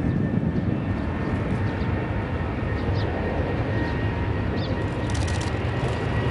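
Boeing 787 Dreamliner's Rolls-Royce Trent 1000 jet engines running on the runway before take-off: a steady rumble with a thin high whine. A bird chirps a few times.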